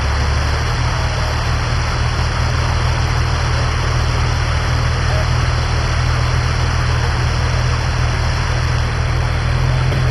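Off-road vehicle engine idling steadily, a low hum under a constant hiss.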